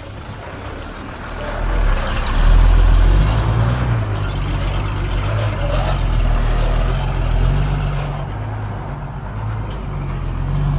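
Heavy diesel engine of earthmoving machinery running under load, a deep steady hum that swells louder about two seconds in and then holds.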